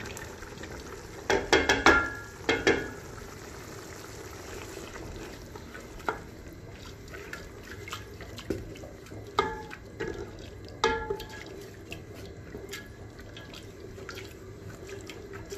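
A wooden spoon stirring soaked split chickpeas into a simmering tomato sauce in a metal pot, with a wet, sloshing sound. A few sharp knocks in the first three seconds come from the plate and spoon striking the pot rim, followed by lighter ringing clinks of the spoon against the pot every second or two.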